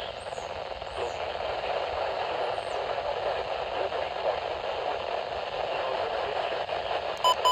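Weather radio receiver hissing with static, the broadcast voice of a marine warning dropping out under it. A short electronic beep sounds near the end.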